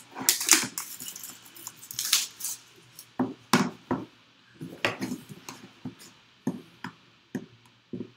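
Cardboard and paper packaging handled by hand: a paper sleeve slid off a small cardboard puck box and the box turned over and set down. The sound is a string of irregular knocks, taps and scrapes.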